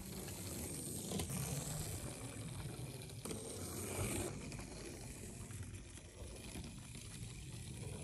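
Faint whirring of a 1:64 scale FMS Flush 30 RC car's two small electric drive motors and their gear train as the car drives along a slot-car track.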